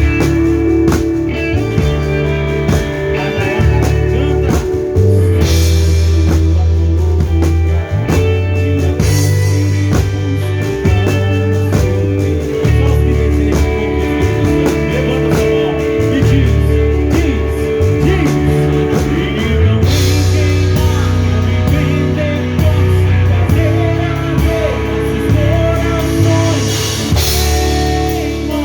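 Live gospel band playing: a drum kit keeps a steady beat under bass and guitar.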